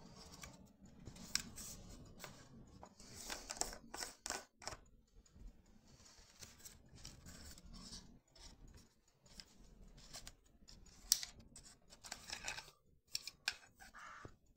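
Faint clicks, taps and metal scrapes from a FED-2 35mm rangefinder camera being handled and turned over, as its detachable back cover is worked loose and taken off, with a couple of sharper clicks among them.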